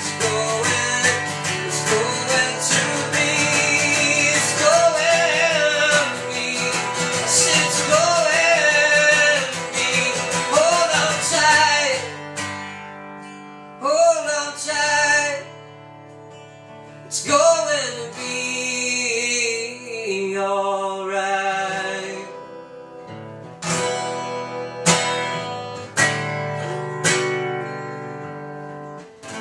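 Acoustic guitar strummed steadily with a man singing over it; after about twelve seconds the playing thins out to sparser picked notes and single strums, and it fades near the end.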